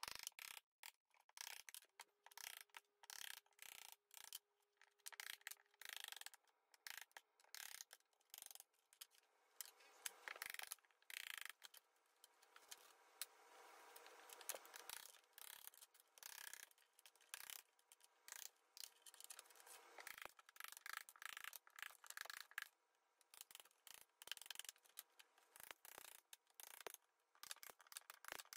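Faint, irregular sharp clinks, cracks and knocks with stretches of scraping as ceramic backsplash tiles are broken and pried off the wall with a hammer and pry bar.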